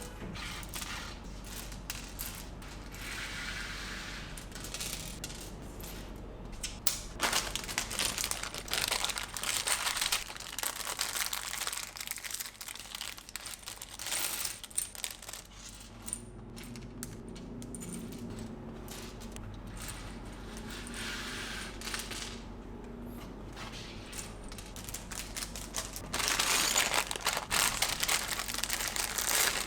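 Plastic packaging crinkling and rustling, with small plastic building bricks clicking and rattling, in irregular bursts that are loudest near the end.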